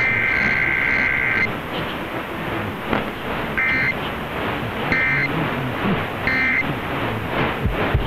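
Emergency Alert System digital data tones over AM radio: a harsh two-tone warble burst ends about a second and a half in, then three short bursts follow about 1.3 s apart. These are the end of the SAME header and the three end-of-message bursts of a Required Weekly Test. A steady hiss of AM radio reception runs underneath.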